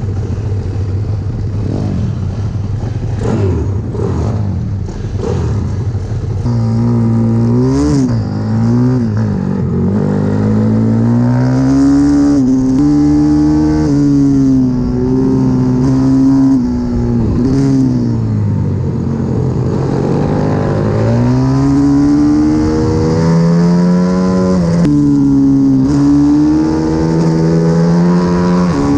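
Pit bike engines idling on the grid, then the onboard CW 140 pit bike's single-cylinder four-stroke engine accelerating hard round the track. Its pitch climbs through each gear and drops at gear changes and braking, again and again.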